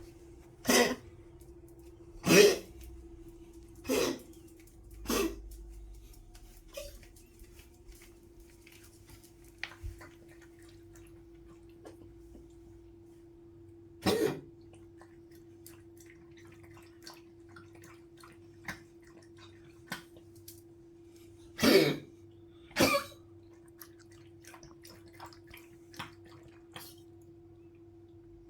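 An old poodle coughing in short hacking bursts: four coughs in quick succession at the start, a single one around the middle, then two close together later on.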